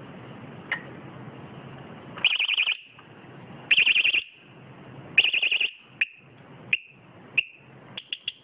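Vibration-sensitive 110 dB bicycle alarm sounding: three loud bursts of rapid, high-pitched pulsed beeping, each about half a second long, followed by single short chirps and a quick run of three chirps near the end.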